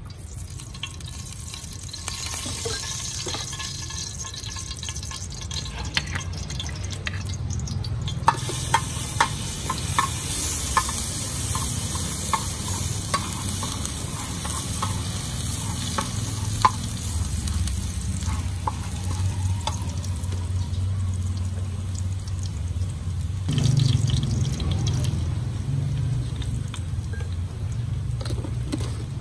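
Chopped garlic sizzling in hot oil in a frying pan, the sizzle growing about eight seconds in. A metal spatula stirs it, scraping and clicking against the pan in a run of sharp taps, over a steady low rumble.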